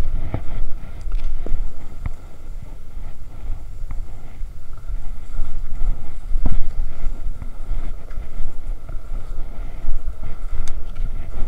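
Wind buffeting the microphone with an uneven low rumble, over scattered light clicks and scrapes from cross-country skis and poles on a groomed trail.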